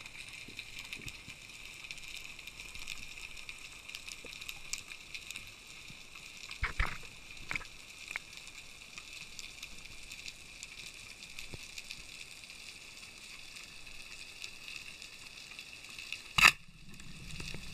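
Faint, steady water hiss with scattered small clicks. A few knocks come about seven seconds in, and one sharp, loud knock comes near the end.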